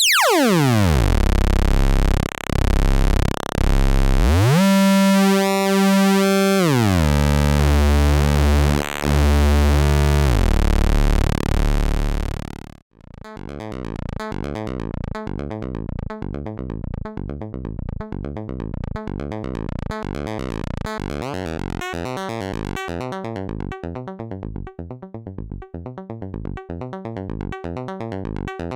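Weston Precision Audio TZO through-zero Eurorack oscillator sounding a loud sustained tone whose pitch and tone sweep and shift. About 13 seconds in it cuts off and gives way to a fast sequenced pattern of short, evenly spaced synth notes over a steady low tone.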